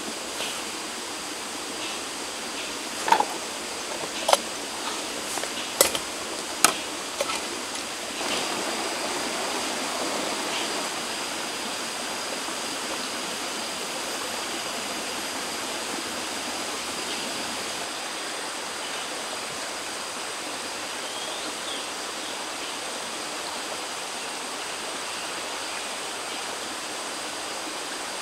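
Steady rush of a flowing stream. In the first seven seconds about four sharp clicks and knocks stand out, from handling the cast-iron sandwich maker and utensils, with faint steady high tones running underneath.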